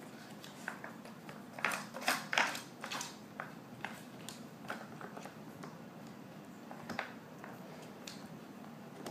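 Small dog nosing and pawing at a wooden Nina Ottosson Dog Trubble puzzle board, its wooden pegs and sliders clicking and knocking. The clicks are scattered, with a denser, louder flurry about two seconds in.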